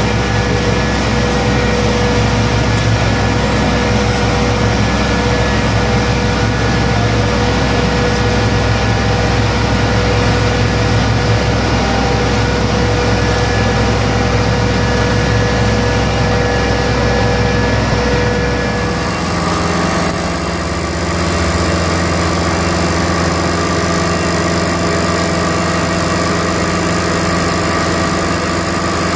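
Engines of concrete-floor machinery running steadily: a Somero topping spreader broadcasting dry-shake hardener, then, after an abrupt change about two-thirds of the way through, a Somero ride-on laser screed working the fresh concrete.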